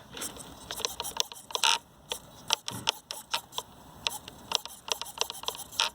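Steering servo of an Axial SCX24 micro crawler swinging the front wheels back and forth, heard as a string of short, irregular clicks and brief buzzes, one longer buzz near the two-second mark.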